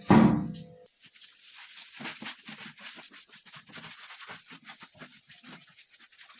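Two heavy knocks at the start, then a run of irregular soft clicks and scrapes from plastic toilet fill-valve (ball cock) parts being handled and worked loose.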